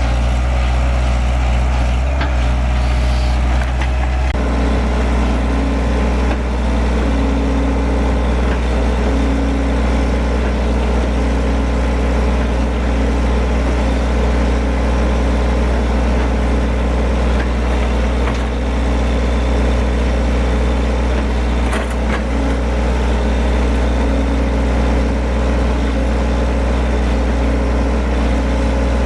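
Excavator's diesel engine running steadily under a loud, low drone. About four seconds in the note changes and a second, slightly higher drone joins and holds.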